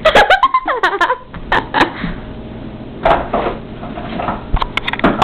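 A short, high, wavering voice sound, then knocks and clatter from boxes and packets being shifted on a kitchen cupboard shelf, with a quick run of clicks near the end.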